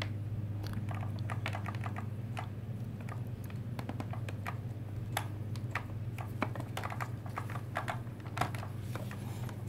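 Irregular small clicks and taps of hard RC parts being handled as the differential with its new spiral-cut hardened ring gear is set into the X-Maxx rear gearbox housing, over a steady low hum.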